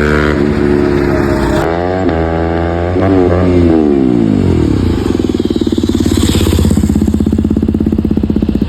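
KTM Duke 200's single-cylinder engine through an SC Project aftermarket exhaust, revved. The revs hold high, drop, and are blipped up and down a couple of times before falling back to a lumpy, pulsing idle about five seconds in.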